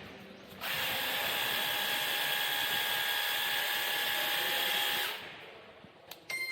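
Cordless pressure washer running: a steady high motor whine over a hiss, starting about half a second in and cutting off about five seconds in.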